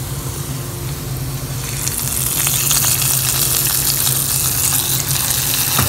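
Hot coconut-oil tempering of fried shallots and coriander leaves sizzling, then poured into a coconut-milk curry. The sizzle turns louder and hissier about two seconds in as the oil meets the curry.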